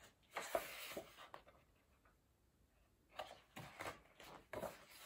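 Faint rustling and brushing of a hardcover picture book's paper pages as it is handled and a page is turned, in short bursts about half a second in and again from about three seconds in.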